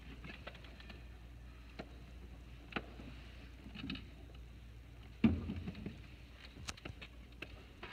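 Scattered light knocks and taps, with one louder thump about five seconds in, over a low steady hum. These are movement noises before any piano is played.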